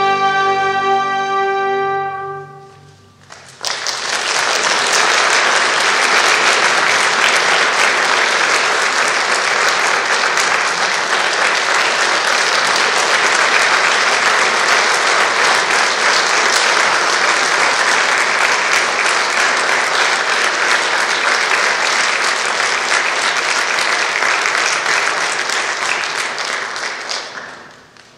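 A string orchestra with piano holds its final chord, which dies away about three seconds in; the audience then breaks into steady applause that lasts until it fades out near the end.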